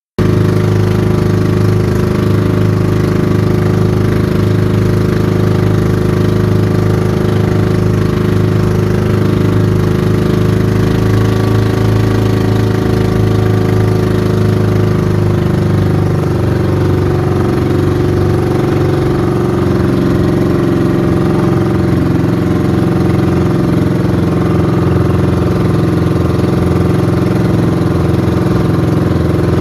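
Ship's engine idling steadily, a sound called coughing. Its note shifts slightly about halfway through.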